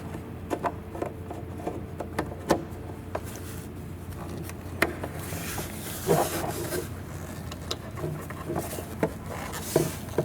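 Scattered plastic clicks, knocks and rubbing as the turn-signal bulb socket and light assembly are handled and the socket is put back into the housing, over a steady low hum.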